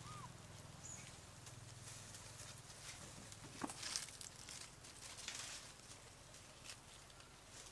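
Faint rustling and scattered crackles of dry leaves as a macaque mother shifts with her infant, with a brief high rising-and-falling chirp right at the start.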